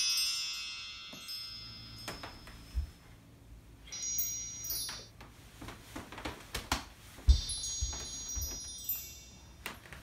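Chimes ringing in a cluster of high tones that fades over the first few seconds, struck again about four seconds in and about eight seconds in, with scattered knocks and low thuds between.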